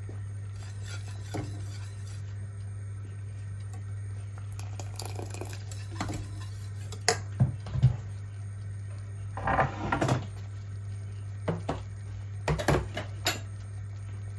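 A wire whisk clinking and scraping against the side of a stainless steel saucepan of porridge, in several short clusters of metal clicks through the second half, over a steady low hum.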